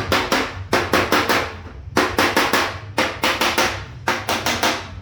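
Panel-beating hammer striking a steel car fender backed by a dolly: quick runs of three to five ringing metal blows, a run about every second, as the dent's edge and the fender line are hammered straight.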